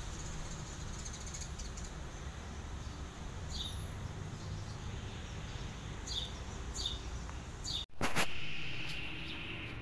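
Outdoor garden ambience with a bird giving short, high, descending chirps several times over a steady low background rumble. The background drops out for an instant near the end and comes back louder and different.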